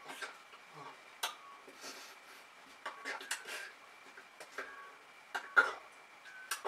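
Scattered sharp clicks, slaps and short breaths from a person signing: hands striking each other and the body, and mouth sounds, with the sharpest slap about five and a half seconds in. A faint steady high whine runs underneath.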